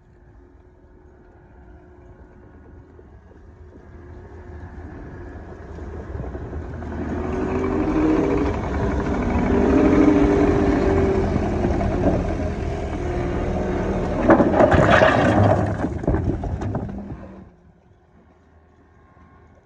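A motor vehicle's engine running and growing steadily louder, as if coming closer or working harder. It is loudest for several seconds, with a brief rattling clatter near the peak, then cuts off abruptly a couple of seconds before the end.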